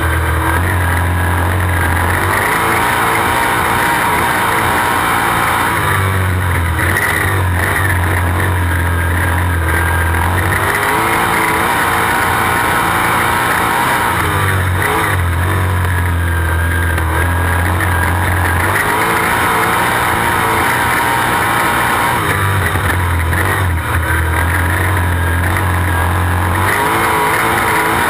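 Sprint car's V8 engine, heard from a camera on the car itself, running hard around a dirt oval. Its note swings in a repeating cycle about every eight seconds as the car goes round.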